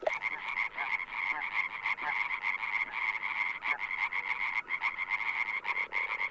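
A chorus of European green toads trilling together, a dense high rapid trill that keeps going without a break, overlapped by many calls: the amphibian chorus starting up again on the lake shore after the eclipse.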